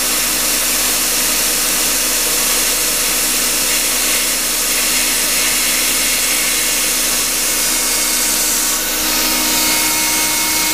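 Secondary air injection pump of a 1.8 L Volkswagen Jetta running while energized, a loud, steady whir with a hiss. Air is leaking out through the pump body, where several of its rivets are broken.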